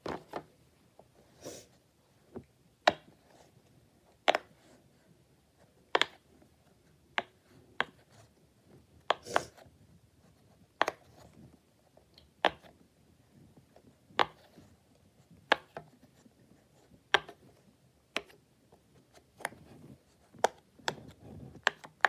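Silicone pop-it fidget toy's bubbles being pressed one at a time with the fingers: short, sharp pops at irregular spacing, about one a second, some louder than others.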